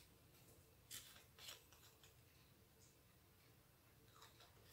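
Near silence with a few faint clicks and rustles of small clear plastic bead-storage bottles being handled: two about a second in and a softer one near the end.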